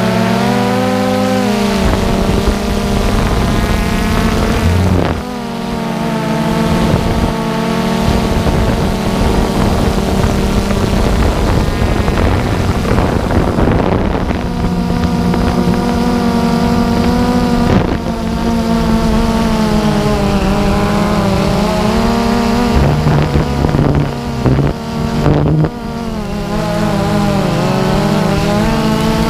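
DJI Phantom 2 quadcopter's motors and propellers whining steadily, their pitch wavering up and down as the drone manoeuvres, with wind rushing over the microphone.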